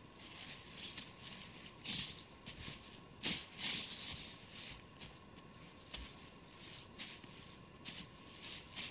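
Footsteps crunching and rustling through a thick layer of dry fallen leaves, in irregular steps, with the loudest crunches about two and three and a half seconds in.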